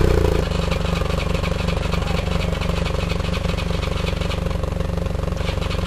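Yamaha XJ600S Diversion's air-cooled inline-four engine idling just after starting, its revs easing down about half a second in and then settling into a steady idle.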